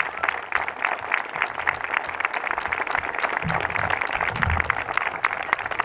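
Crowd of wedding guests applauding steadily, with a couple of low thumps about three and a half seconds in.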